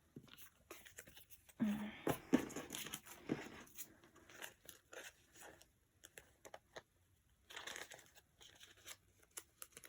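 Paper and thin card being handled: crinkling and rustling with scattered small taps, in a few busier spells.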